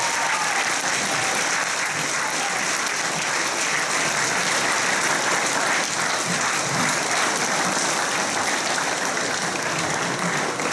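A large crowd applauding steadily in a hall.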